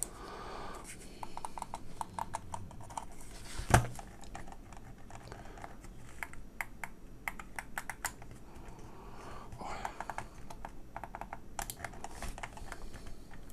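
Buttons of an EKSA EM100 wired gaming mouse being clicked, many short clicks in irregular runs, with one louder knock about four seconds in.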